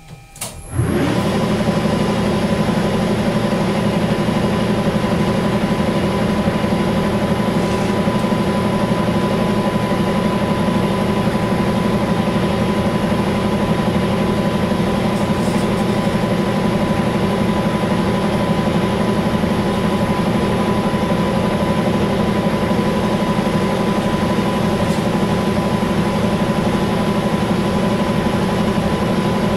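Weiler Matador metal lathe starting up about a second in, then running steadily at 1200 rpm under power feed while taking a light facing cut. A steady high tone sits over the even drone of the motor and gearing.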